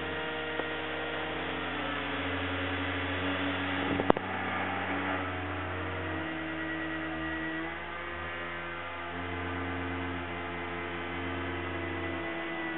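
Two small DC motors driven from an Arduino motor shield, running and humming, their pitch shifting in steps every second or so as their speed follows the EEG headset's attention and meditation readings. A sharp click about four seconds in.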